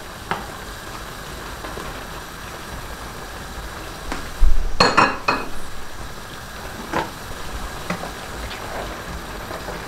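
Kitchen utensils and cookware knocking and clinking as a spoon, pan and oil bottle are handled, with a steady low hiss underneath. A loud cluster of clinks comes about five seconds in, with single knocks before and after.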